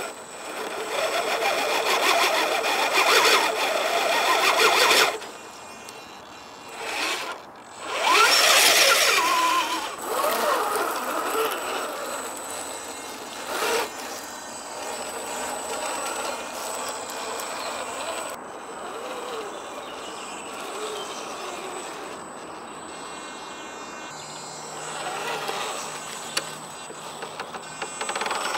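RC crawler's brushed electric motor and geartrain whining as it climbs rock, the pitch rising and falling with the throttle. It is loudest in the first five seconds and in a quick rev about eight seconds in, then runs quieter and steadier.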